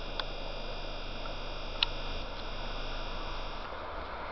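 A camera's zoom motor gives a steady electrical hum with a high whine while zooming out, cutting off near the end, with two faint clicks over low background noise.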